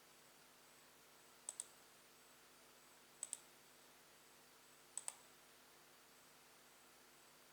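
Three quick double-clicks of a small plastic click button, each a pair of sharp clicks, coming about every one and a half to two seconds over a faint steady hiss.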